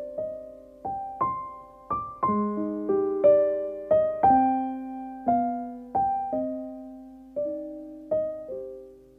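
Instrumental music: a slow, gentle keyboard melody in a piano-like tone, single notes struck one after another, each ringing and fading, about one or two a second, the last fading away near the end.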